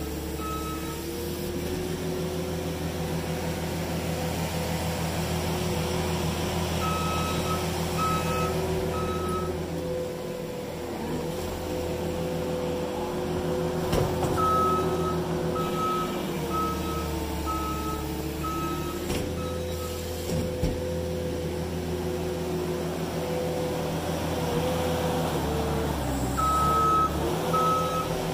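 New Holland 327 skid steer's diesel engine running steadily while it works, its note sagging and recovering a few times under load. Its backup alarm beeps in runs of about one and a half beeps a second each time it reverses: near the start, twice in the middle and again near the end.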